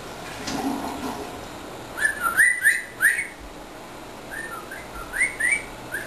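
African grey parrot whistling: two runs of short, upward-sliding whistle notes, about four quick ones around two seconds in, then about five more from about four seconds in, the last sliding down.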